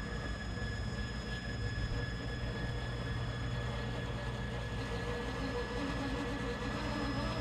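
Radio-controlled rock crawler's electric motor and geared drivetrain whirring steadily under a long, slow crawl, with a few thin constant tones.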